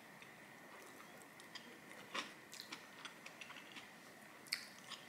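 Quiet eating sounds: scattered light clicks of chopsticks on a plate and bowl with soft chewing, one click a little louder about two seconds in, over a faint steady high hum.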